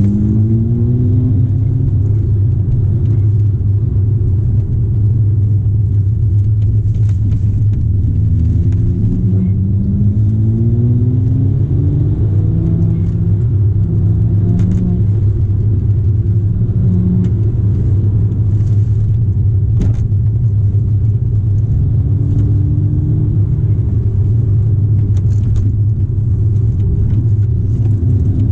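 A BMW straight-six engine and the tyres' road rumble, heard from inside the cabin. The engine note climbs in pitch as the car accelerates, just after the start and again about eight to eleven seconds in, and holds steadier while cruising in between.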